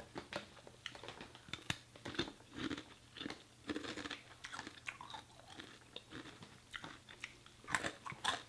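Close-miked eating: a person chewing food with irregular small crunches, a little louder near the end.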